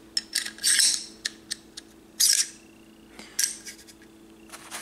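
AR-15 charging handle being fitted into the upper receiver by hand: a series of light metallic clicks and short scrapes, the longest scrape a little over two seconds in.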